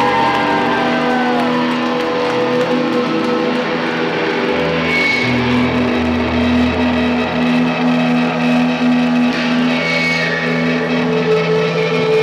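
Live rock band's electric guitars and bass through amplifiers holding long, droning notes, with a couple of falling pitch slides near the start. A brief high tone sounds twice, about five and ten seconds in.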